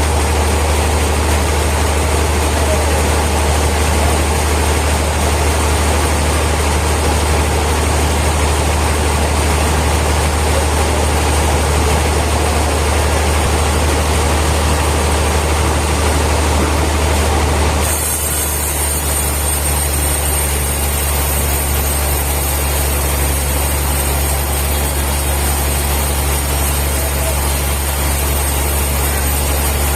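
Sawmill machinery running with a steady low drone and a hiss. About eighteen seconds in, the sound changes abruptly to a slightly quieter drone with less hiss.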